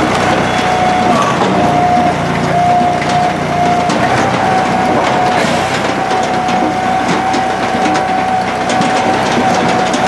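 Brute Force 16-24 firewood processor running under load: its engine and hydraulics hold a steady whine while logs knock and clatter through the machine as they are fed and split.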